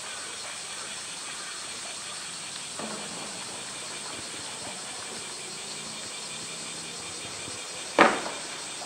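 A large roly-poly toy knocked about by a polar bear: a light knock about three seconds in, then one sharp, loud knock near the end as the bear shoves it against the edge of the wood-chip bed. A steady hiss runs underneath.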